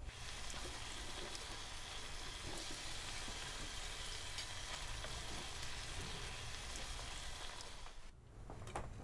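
Steady sizzle of food frying in a pan, with faint light clinks, cutting off suddenly about eight seconds in; a few light clicks follow near the end.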